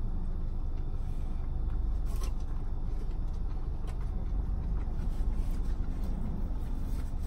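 Steady low vehicle rumble heard from inside a car's cabin, with a few faint mouth clicks from chewing and finger-licking.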